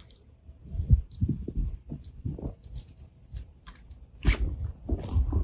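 Handling noise as a rifle scope is unfastened and lifted off a return-to-zero scope mount: a string of low, dull thumps and knocks, with a sharper knock about four seconds in.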